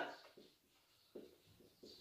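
Near silence, with a few faint strokes of a marker pen writing on a whiteboard.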